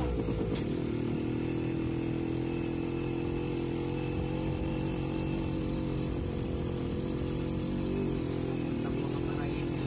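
Engine of the vehicle being ridden in, running steadily along a gravel road. Its pitch dips and settles about half a second in, then holds even.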